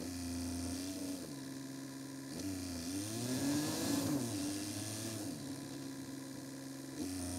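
Car engine running as the car drives along paved town streets, with road and tyre noise. About halfway through it grows louder and its pitch rises and falls as the car revs.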